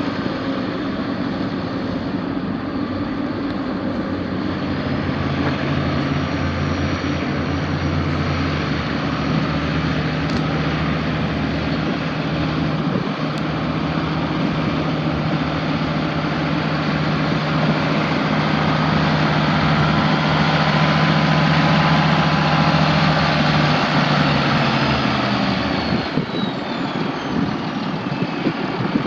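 A 1980 International 1086 tractor's six-cylinder diesel engine running steadily, its note shifting a few seconds in and again near the end, with a faint falling whine just before the end.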